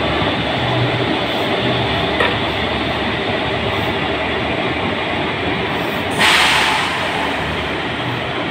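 WAG-7 electric locomotive rolling slowly past with a steady mechanical rumble and low hum. A short burst of hissing noise about six seconds in is the loudest sound.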